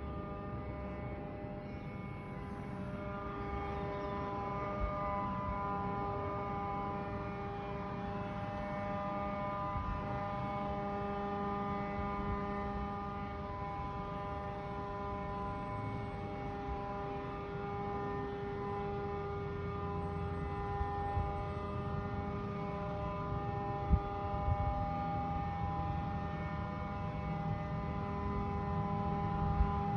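A steady drone of several held tones over a low rumble, unchanging throughout, with a few sharp knocks, the loudest about four-fifths of the way through.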